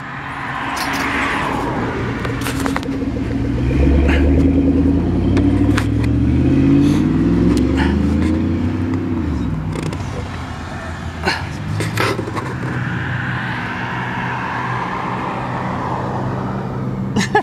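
A motor vehicle's engine drives past close by: it grows louder over the first few seconds, its pitch slides down and it fades about ten seconds in. A steadier low engine hum follows, with a few sharp knocks.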